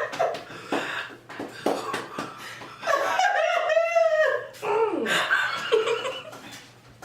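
Loud laughter in several bouts. The longest and loudest bout comes about three seconds in.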